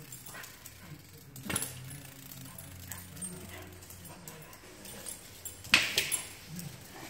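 A dog making low, short vocal sounds while it goes after a dragonfly, with two sharp knocks, the louder one near the end.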